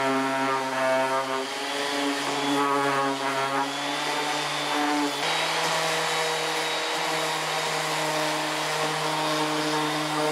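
Electric random orbital sander running as it sands a pine block. The motor gives a steady hum whose pitch shifts slightly a few times as the pressure on the pad changes.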